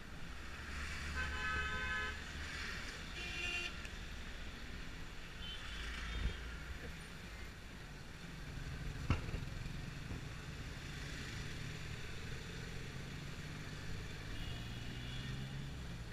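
Busy street traffic heard from inside a taxi: a steady engine and road rumble, with vehicle horns honking, the longest about a second in and a shorter one about three seconds in, fainter ones later. A single sharp knock about nine seconds in.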